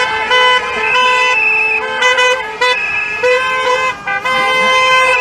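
Car horns honking in a passing convoy: several horns overlapping in long and short blasts, almost without a break.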